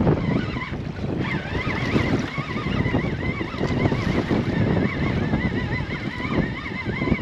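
Wind buffeting the microphone and choppy water against a small boat's hull. From about a second in, a thin whine wavers up and down about three times a second.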